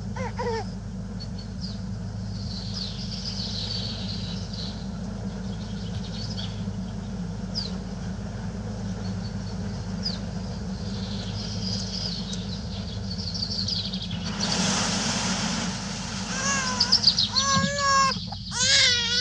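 Small birds chirping over a steady low hum. About three-quarters of the way in, a baby starts crying in loud, wavering wails, several in a row.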